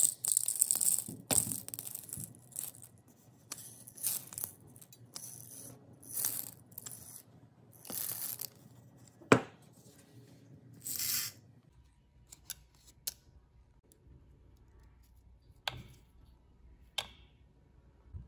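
Whole dry peppercorns being poured from a jar into a measuring cup, rattling in a series of short bursts with one sharp click partway through. After that come only a few single clicks.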